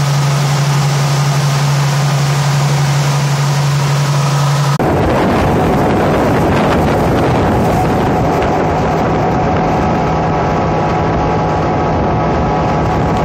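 Motorboat running across open water with a steady engine hum; about five seconds in, the sound changes abruptly to heavy wind rumble on the microphone over the engine and the rush of water.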